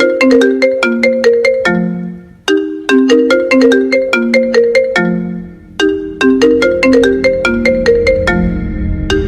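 iPhone ringtone melody in marimba-like struck notes, the same short phrase repeating about every three seconds. A low sustained bass swells in near the end as a pop arrangement builds.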